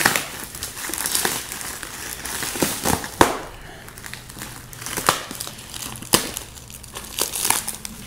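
Plastic shrink wrap crinkling as a hand grips and pulls it, with irregular sharp crackles.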